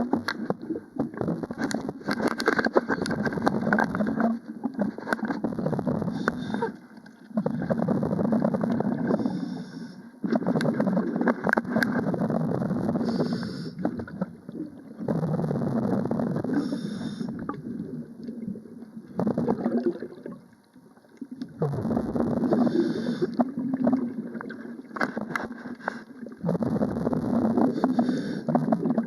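Bubbling, gurgling water in repeated bursts of a few seconds each, with short pauses between them, typical of a scuba diver's exhaled bubbles heard through an underwater camera.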